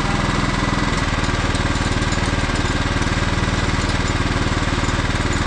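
Riding lawn mower's engine running steadily at a low, even speed, its note shifting slightly about a second in.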